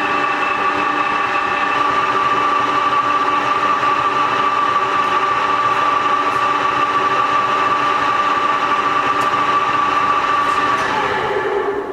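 LeBlond engine lathe running under power, its headstock gearing giving a steady whine over a mechanical drone. In the last second the sound starts to wind down as the spindle slows.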